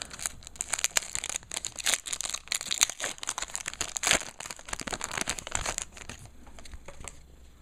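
A trading-card pack wrapper being torn open and crinkled in the hands, with irregular crackling that thins out near the end.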